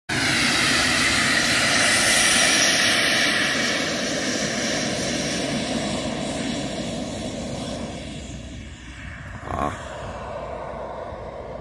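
Radio-controlled Pichler L-39 Albatros model jet taking off: a loud rushing whine with a steady high tone, which fades steadily over several seconds as the model climbs away.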